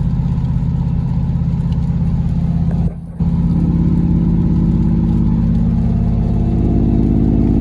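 Truck engine running steadily under way, its note rising slightly after a brief drop-out about three seconds in; the transmission is stuck in 4th gear.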